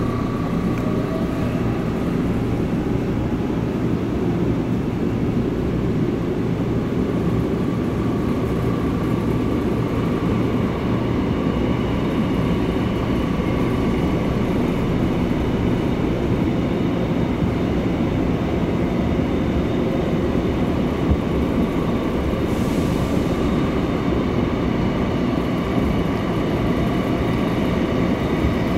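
Steady rumble of steel wheels on rail inside a Seoul Subway Line 8 train car running through a tunnel, with a faint steady whine from the train's IGBT inverter traction drive.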